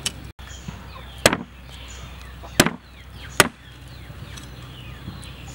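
Cleaver chopping through a fish onto a wooden chopping board: three sharp chops, the first about a second in, the next two a little over a second and then just under a second apart.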